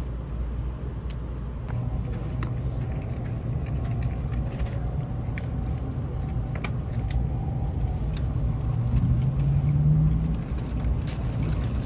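Interior running noise of a Shinkansen train: a steady low rumble with scattered light clicks. Near the end a low hum rises in pitch for about two seconds, then drops away.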